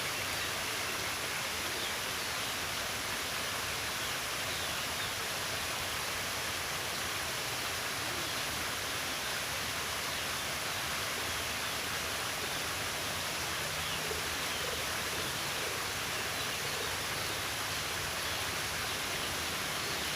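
Steady, unbroken rushing noise of an outdoor nature ambience.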